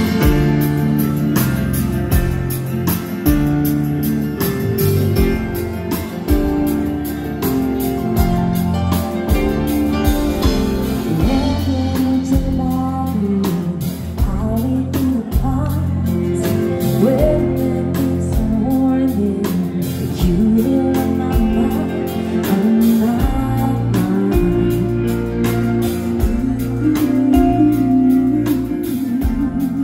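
Live dance band playing a ballad at a steady beat: acoustic and electric guitars, bass guitar, drum kit and keyboard, with singing.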